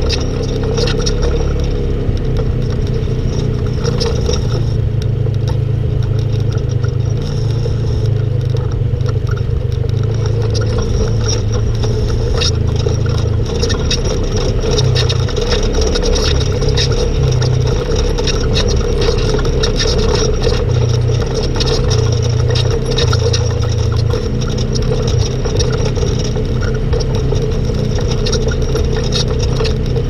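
Polaris RZR RS1 side-by-side's engine running steadily under way on a rough trail, with constant rattling and clatter from the machine and the trail surface.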